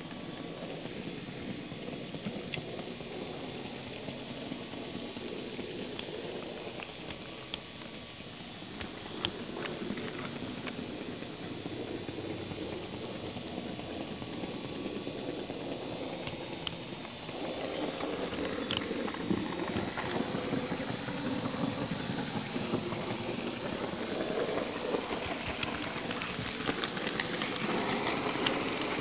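HO scale model train running along its track, a steady rumble of wheels on rail with occasional sharp clicks, getting louder about two thirds of the way through.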